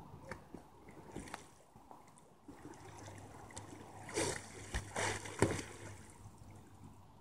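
Water splashing as a kayak is rolled over and righted in a shallow pond, with the loudest splashes a little after four seconds and again about five to five and a half seconds in.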